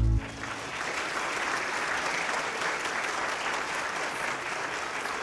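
Church congregation applauding. A held final chord of the music cuts off just at the start, and the clapping then runs on steadily.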